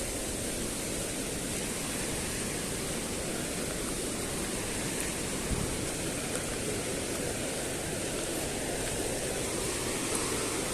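Steady rush of a mountain stream tumbling through a gorge, with a brief low bump about halfway through.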